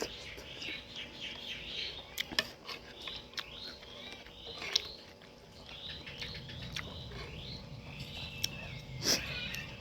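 Small birds chirping over and over in the background, with several sharp clicks or taps scattered through.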